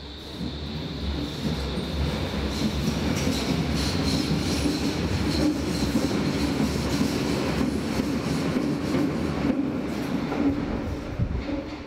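Berlin U-Bahn train on the U2 line running along the track. It gets louder over the first couple of seconds, holds steady, and drops away near the end, with a few sharp knocks shortly before it fades.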